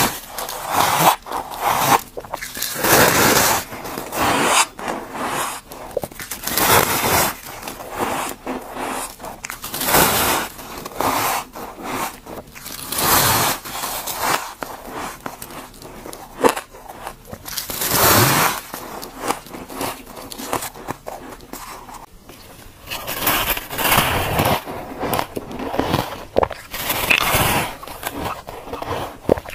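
Powdery freezer frost being bitten and chewed in repeated bites, about every second or two.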